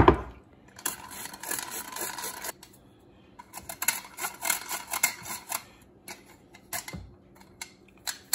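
Hand-crank metal flour sifter being cranked over a mixing bowl, its wire agitator scraping the mesh in two runs of rapid clicking and rasping as sugar and flour are sifted, then a few scattered clicks. A knock sounds right at the start.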